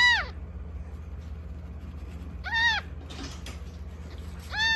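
Newborn kitten, about a week old, mewing three times, each cry a short call that rises and falls in pitch, about two seconds apart.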